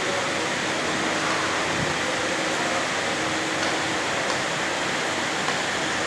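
Steady, even noise of air-cooling equipment running, with a few faint light clicks from about halfway on.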